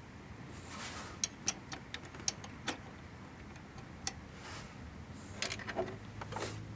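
Light, irregular metal clicks and ticks, about nine of them, as a pin and cotter pin are handled and fitted to the lever that holds the massage chair's backrest.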